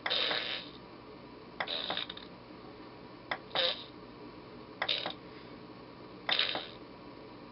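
Recorded fart sound effects played back one after another by the 'fart bugger' prank sound board through its small speaker: five short blasts about a second and a half apart.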